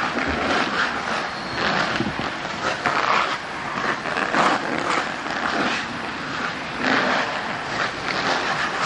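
Ice hockey skate blades carving and scraping the ice in repeated strokes as a skater strides and turns.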